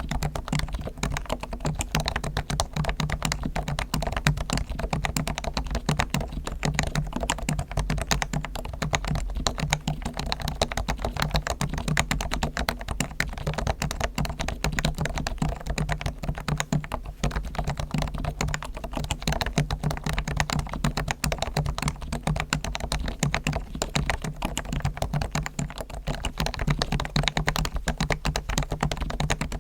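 Continuous fast typing on a Realforce R1 keyboard with Topre electrostatic capacitive switches, in a steady stream of keystrokes. The sliders, springs and stabilizers are lubed with Krytox and the case is lined with sound-damping foam.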